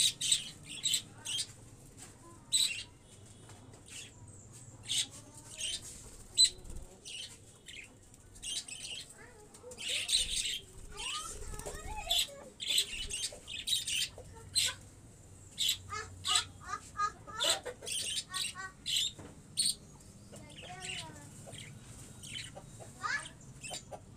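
Chickens calling in a farmyard: many short, high chirps follow one another throughout, with a few lower clucking calls in the middle and near the end.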